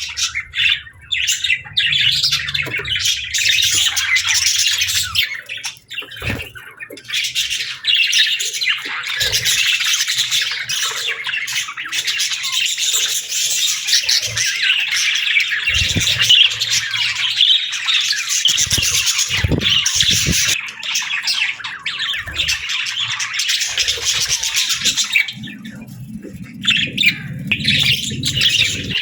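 A flock of budgerigars chattering and chirping continuously, with many rapid overlapping warbles and squawks, and a few low thumps scattered through.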